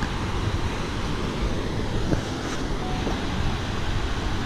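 Creek water rushing over stepped rock ledges in small cascades, a steady even rush.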